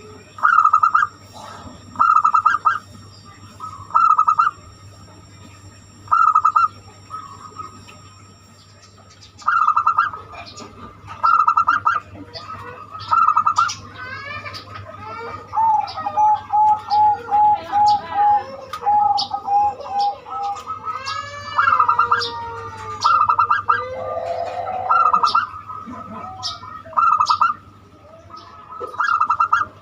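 Zebra dove (perkutut) cooing: short phrases of rapid coo notes repeated about every two seconds. Other birds chirp and twitter over it through the middle stretch.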